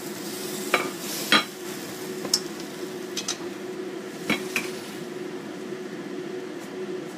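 Minced beef sizzling in a frying pan as it is stirred with wooden chopsticks, the sizzle dying away after the first second or two. Several sharp knocks and clinks of the pan and utensils follow as the pan is taken off the burner, the loudest about a second in, over a steady hum.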